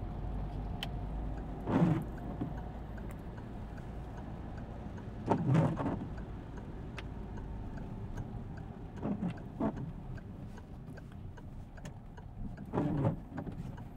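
Steady engine and road noise inside a moving car's cabin, with the turn indicator ticking evenly.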